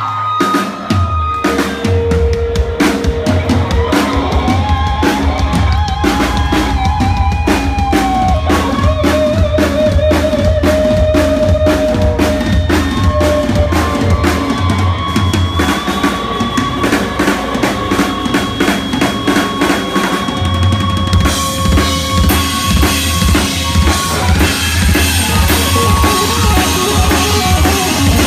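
Live rock band playing: a drum kit keeps a steady, driving beat with heavy kick drum under a single-cutaway electric guitar, loud and full.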